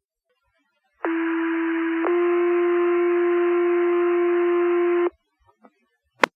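Two-tone sequential fire pager alert sent over the dispatch radio: a steady tone for about a second, then a slightly higher tone held for about three seconds, alerting the volunteer fire station. A sharp radio click near the end.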